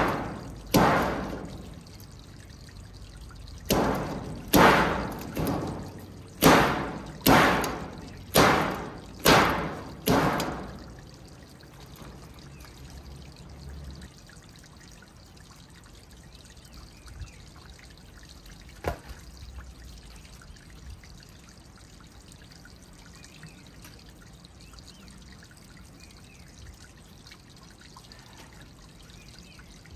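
A run of about nine sharp strikes in the first ten seconds, each dying away over a fraction of a second, then a single lighter knock some seconds later.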